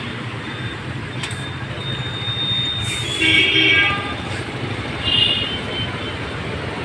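Steady road traffic noise, with a vehicle horn tooting about three seconds in and again briefly about five seconds in.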